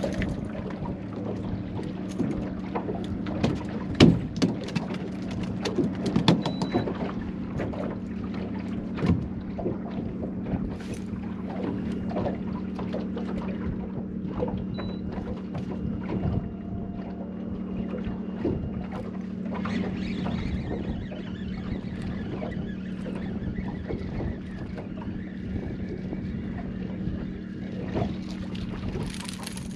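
Steady low hum of an electric bow-mount trolling motor holding the boat, with scattered knocks and clatter over roughly the first ten seconds as a just-caught speckled trout is handled and unhooked.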